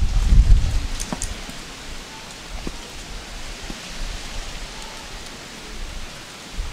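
Wind buffeting the microphone in the first second, then a steady rushing hiss of wind through the tree's leaves, with a few faint knocks of a wooden stirring stick in a pot of thick paste.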